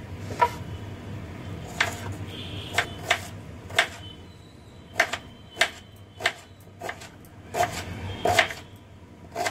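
Kitchen knife slicing an onion on a plastic chopping board: sharp, irregular knocks as the blade goes through and strikes the board, roughly one a second.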